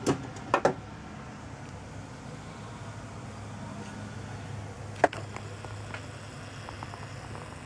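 Steady low drone of a distant light aircraft's piston engine, the Reims FR172F. Three sharp knocks come in the first second and a louder one about five seconds in.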